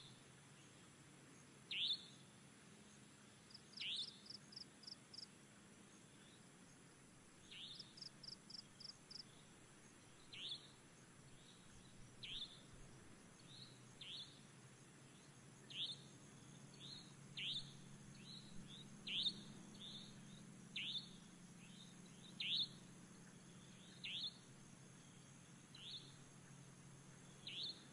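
Faint night-time ambience of small animal calls: short chirps falling in pitch, repeated every second or two, with a couple of quick runs of about five higher pulses in the first ten seconds.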